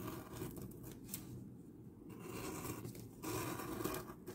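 Pen-style craft knife scraping and slicing through a paper mailer, with scratchy, papery cutting and light tearing sounds, louder for a moment about three seconds in.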